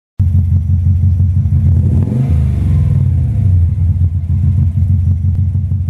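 A loud engine starts suddenly and runs with a deep, rapidly pulsing note. About two seconds in it revs up and settles back down.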